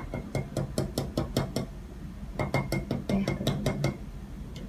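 Short background music: a quick run of plucked notes, played as two brief phrases with a short gap between.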